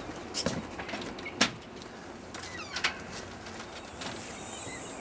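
Clicks and knocks of a storm door's handle and latch as it is worked open, the sharpest about a second and a half in, followed by a short hiss near the end.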